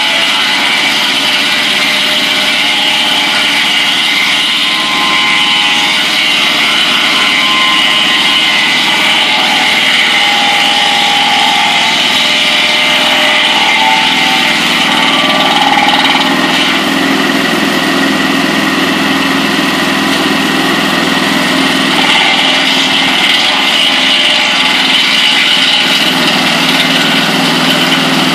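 Mobile Dimension sawmill running at speed, its engine and circular saw blade making a loud, steady whine while boards are cut from a log. The sound shifts slightly about sixteen and again about twenty-two seconds in.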